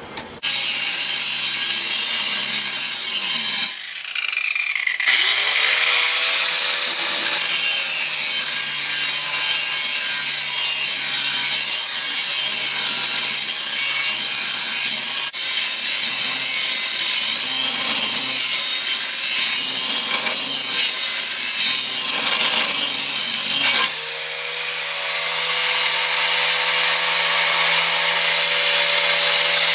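Angle grinder with an abrasive disc working a 5160 spring-steel blade blank, a loud steady rasp of disc on steel over the motor's whine. About four seconds in the grinder winds down and stops, then spins back up to speed a second later; near the end the rasping eases and the motor's hum comes forward.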